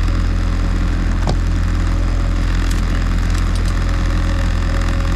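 Boat's Mercury outboard motor running steadily at trolling speed, an even low drone, with a light knock about a second in.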